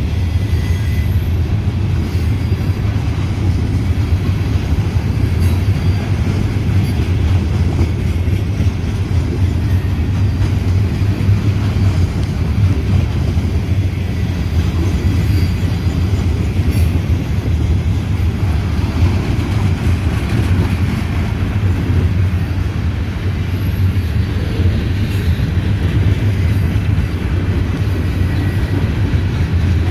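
CSX freight train rolling past: a steady, heavy low rumble of railcars and wheels on the rails.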